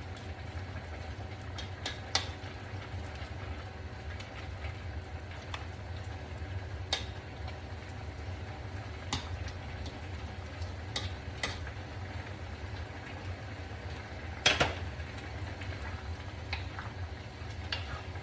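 Chicken broth with pancit canton noodles simmering in a pan, a steady low bubbling, with scattered clicks and knocks of a utensil against the pan; the loudest knock comes about three-quarters of the way through.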